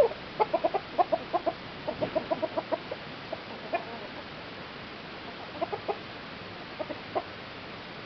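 Chickens clucking: a quick run of short clucks in the first three seconds, then scattered single clucks.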